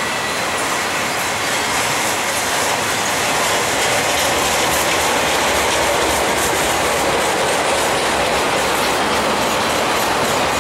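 Norfolk Southern intermodal freight train of trailers on flatcars rolling past: steady steel-wheel rumble on the rails with a running clickety-clack of wheels over the track joints.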